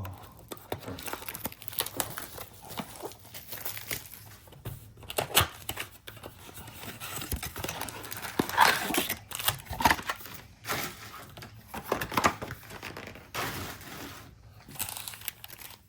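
A trading-card pack wrapper crinkling and being torn open, with cards handled, in a run of irregular rustles and rips.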